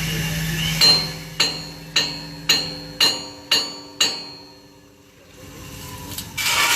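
Hammer striking metal seven times, about two blows a second, each blow ringing briefly, while a propeller is being fitted to a ship. A steady low hum stops partway through, and a short hiss-like burst comes near the end.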